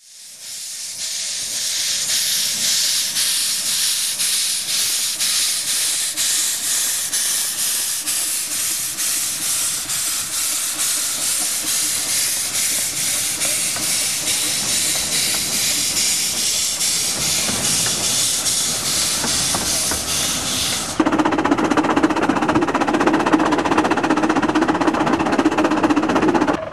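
15-inch gauge steam locomotive 'Wroxham Broad' (Guest, 1964) moving off with its cylinder drain cocks open: a loud steady hiss of steam cut by a quick even rhythm of exhaust beats. About three-quarters of the way through this gives way to the fuller, louder running sound of the engine working along the line as heard from its footplate.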